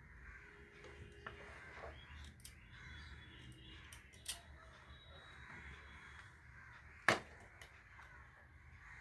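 Quiet workbench handling of small hardware while a transformer is fitted: a few scattered clicks of nuts and screws, the sharpest about seven seconds in, over faint background noise.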